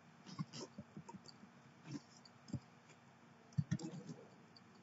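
Computer keyboard keystrokes: faint, scattered, irregular clicks, with a louder pair about three and a half seconds in.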